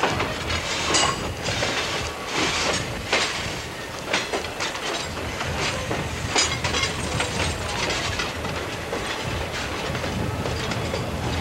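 Diesel-hauled passenger train rolling along, heard from aboard the cars: wheels clicking over the rails at irregular intervals over a steady low rumble.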